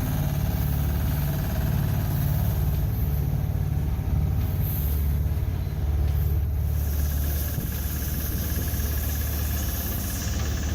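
Heavy vehicle engine running steadily with a deep, even rumble. Its tone shifts slightly about six to seven seconds in.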